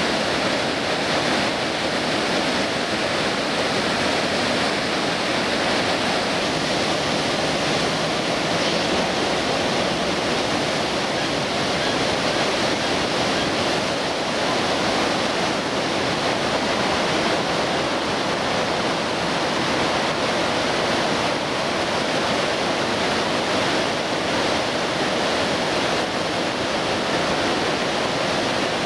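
River water rushing steadily over a weir, a constant even wash of white water with no breaks or changes.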